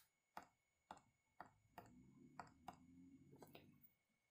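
Near silence: room tone with a few faint, irregularly spaced clicks.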